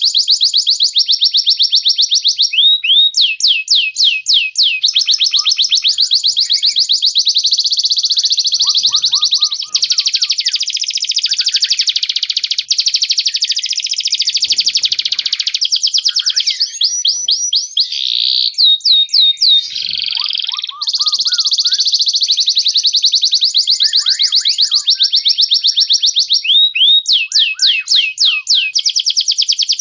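Canary and white-rumped shama song from a masteran (song-training) track: continuous fast, high trills and rolls with runs of rapid repeated down-sweeping notes, broken briefly a few times.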